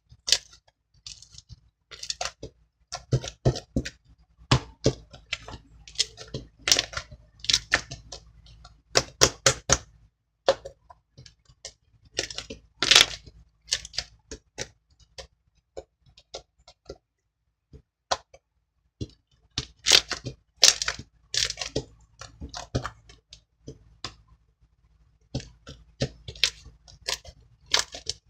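Soft, fluffy slime being squeezed, stretched and poked by hand, making clusters of wet clicks, pops and crackles with short pauses between handfuls.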